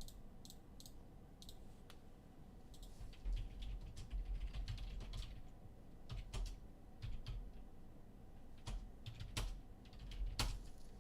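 Irregular clicks and taps on a computer keyboard, with a few dull low thuds between them.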